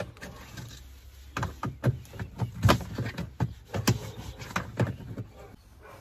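Sharp plastic clicks and knocks as a lint filter is pushed and snapped onto its mount on the wall of an LG twin-tub washing machine's plastic wash tub. About a dozen uneven strikes, starting about a second and a half in and stopping shortly before the end.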